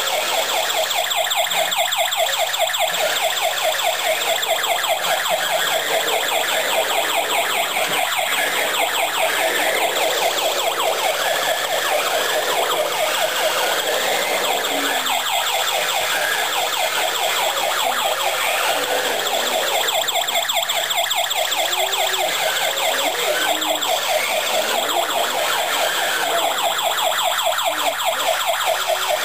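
Toy radio-controlled fire truck's built-in electronic wailing siren, which switches on with the truck, playing continuously and evenly loud with a rapid pulsing warble as the truck drives about.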